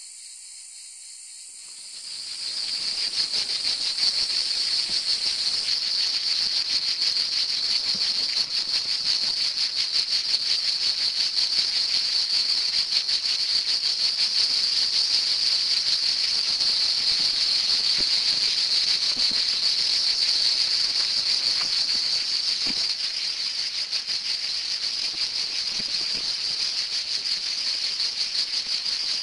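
A chorus of cicadas singing: a steady, shrill, rasping drone that swells in about two seconds in and then holds.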